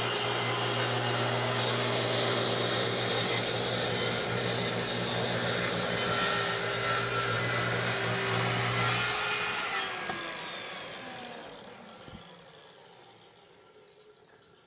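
Electric power saw running and cutting a wood shelf panel, then switched off about ten seconds in, its pitch falling as the blade winds down to a stop.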